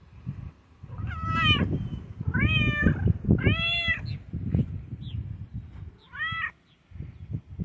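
A domestic cat meowing loudly: four long meows, three close together and a last one after a short pause. A low rumbling noise runs underneath.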